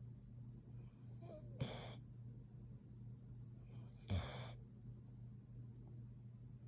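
A sleeping Plott hound mix snoring softly: two snoring breaths about two and a half seconds apart, each a short rush of air, over a steady low hum.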